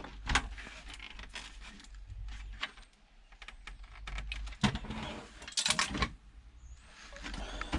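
Irregular clicks and light knocks of small plastic and metal parts being handled while an electronic unit is taken apart by hand, with a louder flurry of clatter a little past the middle.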